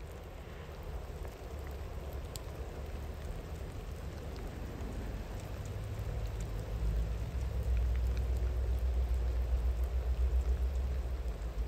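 Steady rain with scattered drips, over the low rumble of a distant train that swells in the second half.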